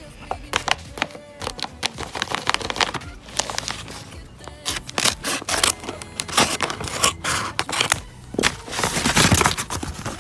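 Close-up crinkling, rustling and clicking of packaging being handled and opened, in quick irregular bursts, with a louder stretch of rustling near the end.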